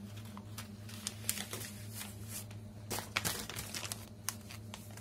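A sheet of white paper being crinkled and crumpled in a toddler's hands: irregular rustles and crackles, busiest in the middle, over a steady low hum.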